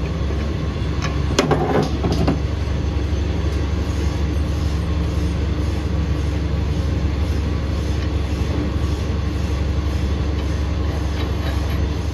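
A steady, low mechanical drone of machinery running, with a low hum in it. A brief rattle sounds about a second and a half in.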